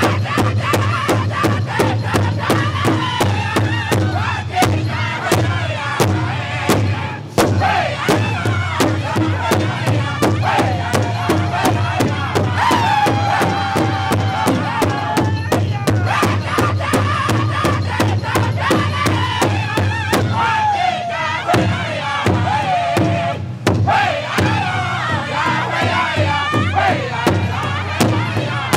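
Northern-style powwow drum group: many drummers striking one large hide drum together in a steady, even beat while the men sing in high, strained voices, their phrases falling in pitch.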